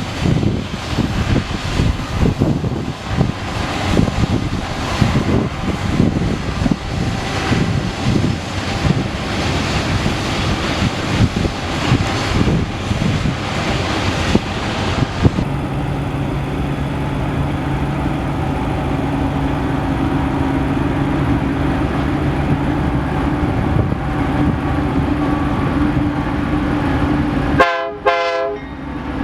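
Train running past with rough rumble and clatter. About halfway through, the sound gives way to a steadier engine drone. Near the end a chime-like train horn sounds.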